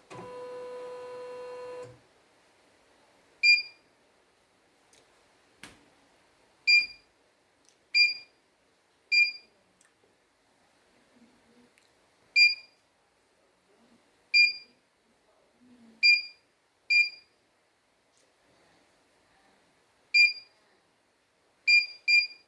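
Computerized embroidery machine's control panel beeping: about a dozen short, identical high beeps at irregular intervals as its touchscreen buttons are pressed, two in quick succession near the end. A steady machine hum runs for the first two seconds.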